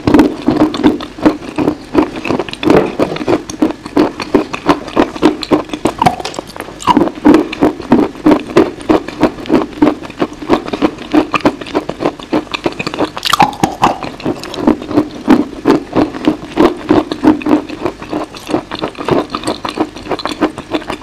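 Close-miked biting and chewing of a dry, crumbly white chalky block: a dense run of crisp crunches and crackles, with one louder crunching bite about thirteen seconds in.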